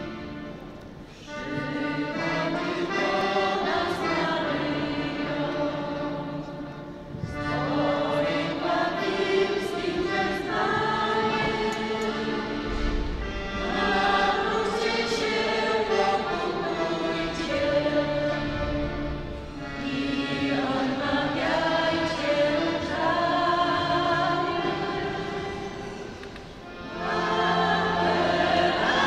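A women's folk vocal group singing a Marian song together, with accordion accompaniment. The singing comes in phrases of about six seconds, with short breaks between them.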